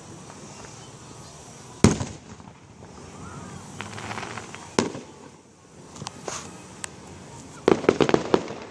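Fireworks display: a single loud bang about two seconds in and another a few seconds later, with softer crackling between them. A rapid string of bangs and crackles follows near the end.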